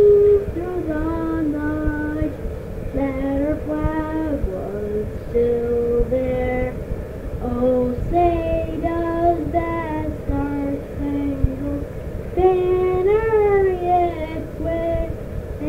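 A woman's voice singing a slow, gliding melody of held notes without clear words, in an amateur family recording, over a low background rumble.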